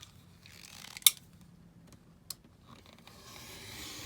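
Scissors cutting through the stiff card of a stand-up calendar: a sharp snip about a second in, a smaller one near the middle, then the blades rasping steadily through the card near the end.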